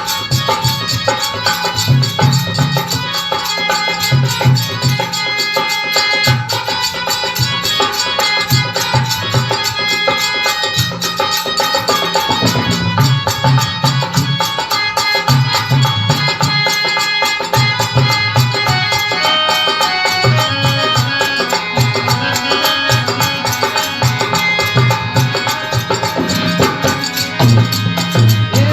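Instrumental passage of Marwari devotional folk music (bhajan). A hand drum keeps a steady rhythm under sustained melodic tones.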